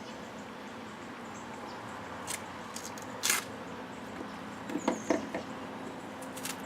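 Brief rustling and handling noises from the cut-open oil filter's paper filter element being handled, a few short scrapes about two to three seconds in and a small cluster near the end, over a steady faint hum.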